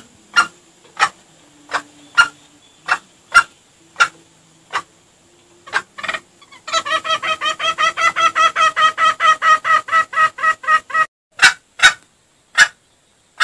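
Junglefowl clucking, played as a lure call: single sharp clucks about every 0.7 seconds, then a fast run of clucks, about eight a second, for some four seconds past the middle, then a few more single clucks.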